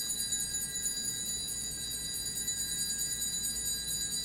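Altar bells rung continuously at the elevation of the chalice, marking the consecration: a steady, high metallic ringing that holds without fading.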